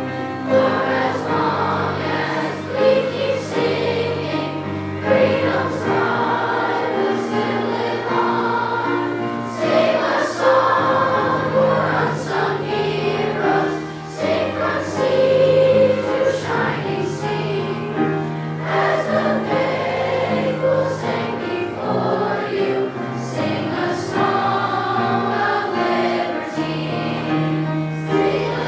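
A children's choir singing a song with instrumental accompaniment.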